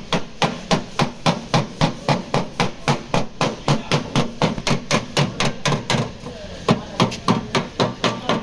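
Rapid, even hammer blows on steel car-body panel, about four or five a second: panel beating to work out the dent in a Toyota Aqua's rear quarter panel.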